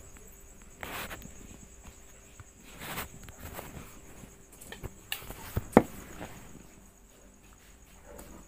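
Light handling clicks and knocks, a few scattered over several seconds, with the sharpest click a little before six seconds in, over a faint steady hum and a thin high whine.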